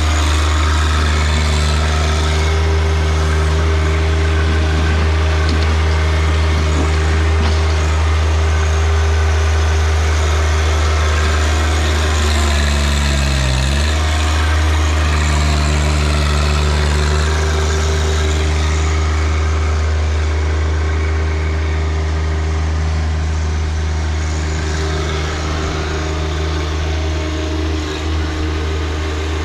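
John Deere 1025R compact tractor's three-cylinder diesel engine running steadily while working the 260B backhoe. About halfway through its pitch sags briefly and then comes back up.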